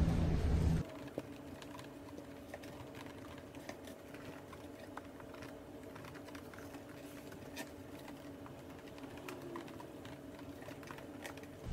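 Light, irregular clicks and taps of hands working a ceramic-coating wipe over plastic tail light lenses, over a faint steady hum. A louder low rumble cuts off just under a second in.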